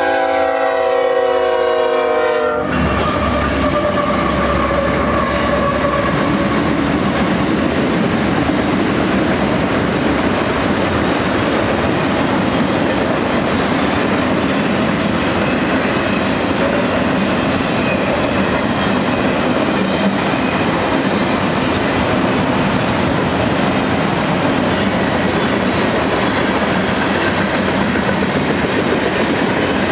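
A multi-note train horn chord sounds for about two and a half seconds and cuts off abruptly. It gives way to a long BNSF manifest freight train of auto-rack and tank cars rolling past at speed, a steady rumble of wheels with clickety-clack over the rail joints.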